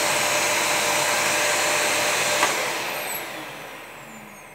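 Dyson DC37 vacuum cleaner running on a test after its motor was replaced: a steady rushing whine that cuts off with a click about two and a half seconds in, then the motor's whine falls in pitch and fades as it spins down.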